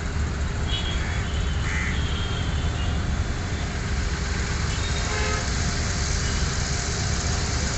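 Steady rumbling roar of a distant jet airliner climbing out after takeoff, with a few short chirps near the start.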